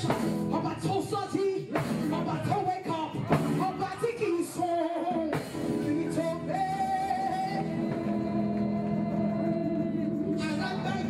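A woman singing gospel live into a handheld microphone over band accompaniment, amplified through a PA in a large hall. From about six seconds in she holds one long note for around four seconds.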